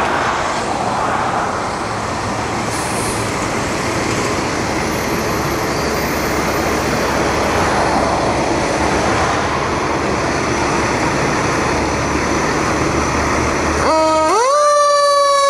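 Fire engine's diesel engine running steadily. Near the end the sound changes abruptly to a siren winding up to a high, held wail.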